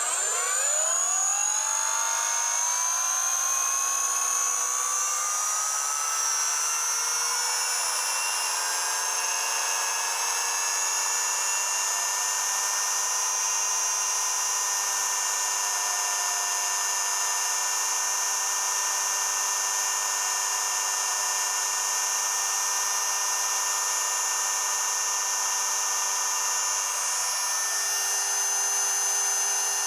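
Electric motor-generator rotor of a Regenerative Acceleration Generator rig spinning up from standstill: a whine rising in pitch over the first eight seconds or so, then running as a steady high whine with its output coils unloaded.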